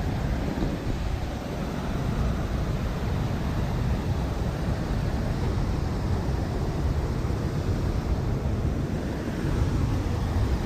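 Waterfall in full flow, a steady rushing of water, with wind rumbling on the microphone.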